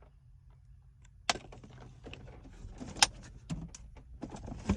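Items being rummaged through and handled: a sharp click about a second in, then scattered small clicks and rustling.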